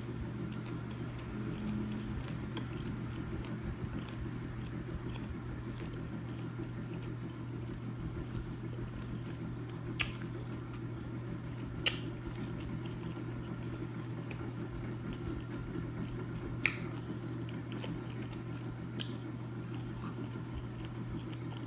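Close-up chewing and biting of food, with a few short sharp clicks like lip smacks over a steady low hum.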